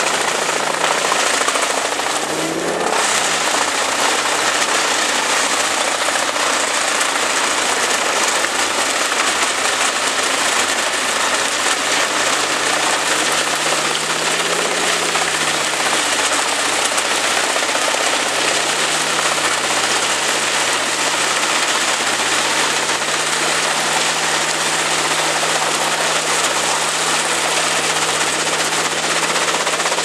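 Large crane-fed wood chipper chipping brushwood and branches: a loud, continuous, dense rattling crackle of wood being cut, over the steady drone of its engine. The engine note wavers briefly twice, once near the start and once about halfway through.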